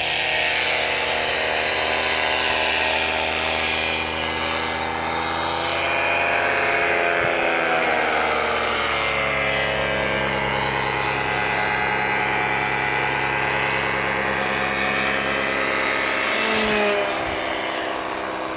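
Radio-controlled scale model of a Cessna 400 Corvalis in flight, its motor and propeller running steadily. The pitch dips about a third of the way through and rises briefly near the end as it passes and the throttle changes.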